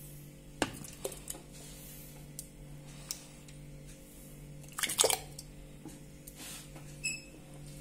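Thick, hot pumpkin jam being scooped and stirred in a metal pot: soft wet squelches and plops with light clicks of a spoon against the pot and ladle, the loudest cluster about five seconds in. A short ringing clink near the end, over a steady low hum.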